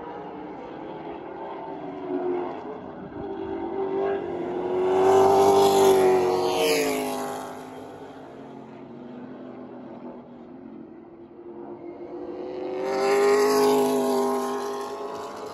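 Outlaw late model race cars' V8 engines at speed, passing twice: once about five seconds in and again near the end. Each pass swells loud and then drops in pitch as the cars go by, with more distant engine sound from around the track in between.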